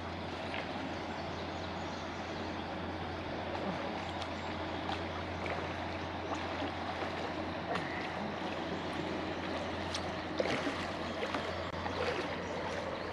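Steady rush of moving river water, with a constant low hum beneath it and scattered small clicks and ticks.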